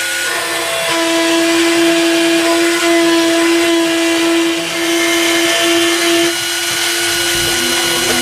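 Spindle of a GoCNC Hobby A3 Basic desktop CNC router running with a steady whine, its pitch dipping briefly a few times. Fuller low sound joins near the end.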